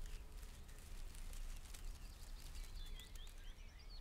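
Outdoor field ambience: a steady low wind rumble with a scatter of faint clicks, and small birds chirping a few times near the end.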